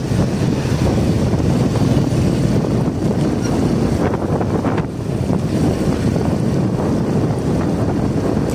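Wind buffeting a phone's microphone on a moving motorcycle: a loud, steady low rumble.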